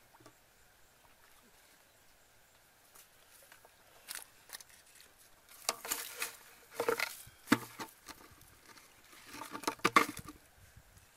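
Irregular bursts of rustling and light splashing from someone working at a shallow muddy puddle among dry grass and leaves. The first few seconds are quiet, and the bursts come in clusters from about four seconds in, loudest near the end.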